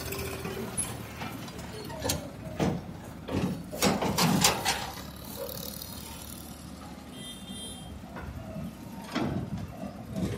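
JCB backhoe loader's diesel engine running under load as the backhoe arm digs and swings, with several sharp clanks and knocks from the arm and bucket. Near the end, a clatter as the bucket dumps wet soil into a tractor trolley.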